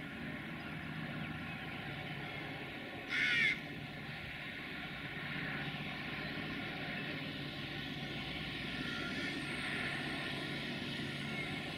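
A crow caws once, a short loud call about three seconds in, over the steady distant hum of an approaching Class 64 diesel locomotive hauling a passenger train, which grows slightly louder in the second half.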